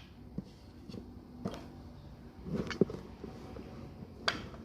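A few light taps and knocks from kitchen utensils and ingredients being handled and set down on a table, over a faint steady hum.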